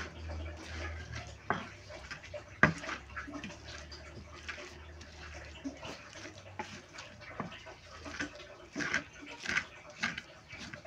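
Wooden pestle crushing and grinding chillies, tomatoes and shallots for sambal in a cobek mortar: repeated wet squishing and scraping strokes, with a few sharper knocks of wood on the mortar, the loudest about two and a half seconds in.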